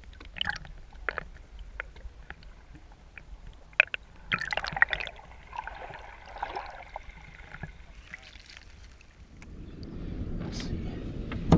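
Muffled water sloshing and gurgling around a GoPro held just under the surface, with several sharp knocks and clicks in the first few seconds. Low wind rumble builds near the end.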